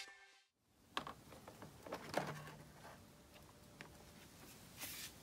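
The tail of electronic intro music stops at the start, followed by near-quiet with a handful of faint, scattered clicks and light knocks of a Honda Ruckus's plastic floorboard being handled.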